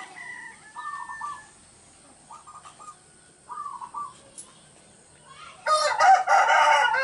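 Caged zebra doves (perkutut) cooing in short staccato phrases, then a rooster crows loudly from about six seconds in.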